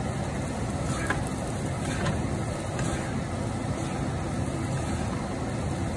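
Fried rice being stir-fried in a pan with wooden spatulas: a steady rushing noise, with the spatula scraping and knocking against the pan a few times.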